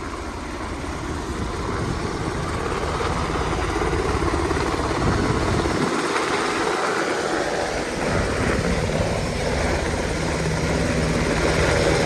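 Rescue helicopter running, its rotor and engine a steady dense noise that grows louder over the first few seconds.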